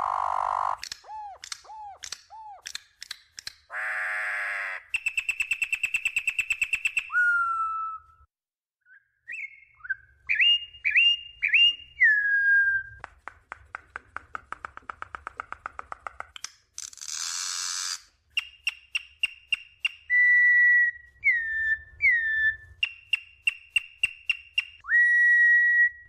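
Campo troupial (corrupião) singing: a varied run of clear whistled phrases, some gliding down in pitch, broken up by harsh buzzy notes, fast ticking rattles and quick runs of clicks.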